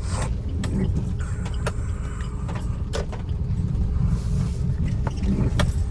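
Hand tools clicking and knocking on metal during work to remove a car's gearbox, over a steady low rumble.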